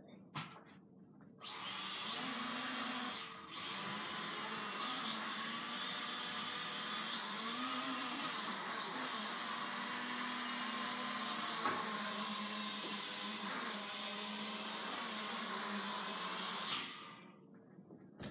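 Small toy quadcopter's propeller motors spinning with a steady high whine. The whine starts about a second and a half in, drops out briefly near three seconds, shifts a little in pitch as the throttle changes, and cuts off about a second before the end.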